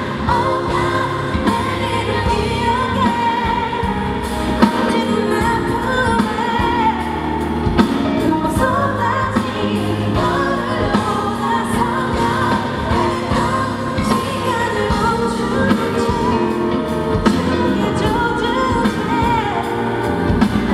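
A female singer sings a pop ballad live over a band and backing track, with a steady beat.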